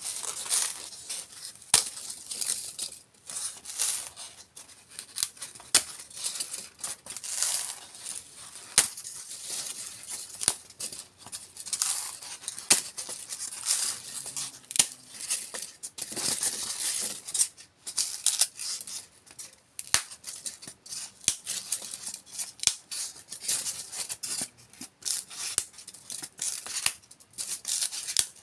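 Styrofoam crackling and crunching as it is worked, a dense irregular crackle with frequent sharp snaps throughout.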